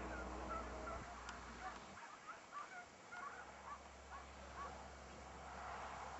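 Faint pack of hare-hunting scent hounds giving tongue, a string of short, quick yelping calls several a second, as hounds do when running a hare's scent.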